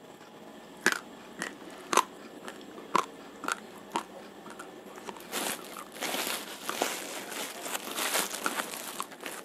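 A mouthful of raw, uncooked rojolele rice crunching between the teeth, sharp crunches about every half second, crunchy like crackers. In the second half a denser crackling rustle joins in as a hand digs into the rice in a plastic bag.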